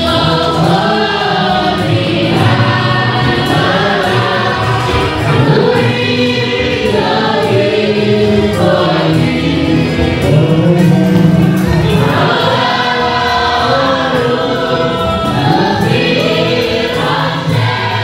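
Church congregation singing a gospel hymn together, many voices in chorus, loud and continuous.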